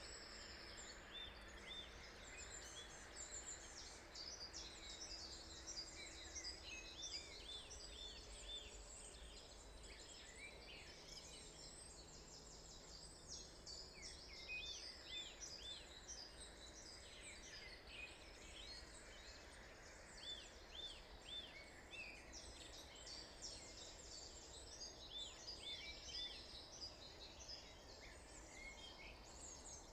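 Faint morning chorus of several songbirds singing at once, overlapping chirps and phrases with a recurring run of four or five arched high notes every few seconds, over a steady low background rumble.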